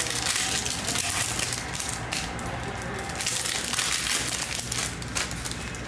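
Foil wrappers of Panini Donruss Elite football card packs crinkling and tearing as they are ripped open by hand.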